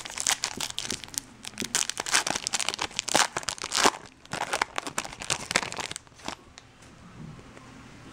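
Foil trading-card pack wrapper being torn open and crinkled by hand: dense crackling that dies down about six seconds in, leaving a few light clicks as the cards are slid out.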